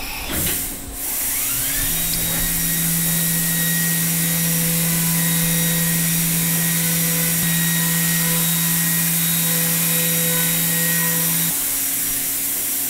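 CNC mill spindle spinning up with a rising whine about a second in, then a 1.25-inch indexable mill cutting 6061 aluminium: a steady high whine over a loud hiss. A low steady hum stops about a second before the end.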